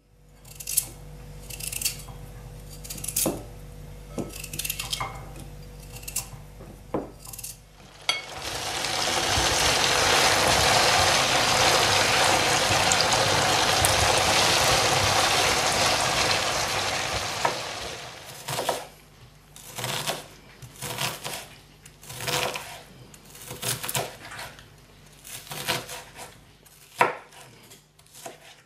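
A knife cutting a potato into a bowl, a string of sharp clicks and taps. About eight seconds in, potato pieces frying in hot oil start up, a loud steady sizzle that dies away about ten seconds later. Then come more sharp clicks and taps of knife and dishes.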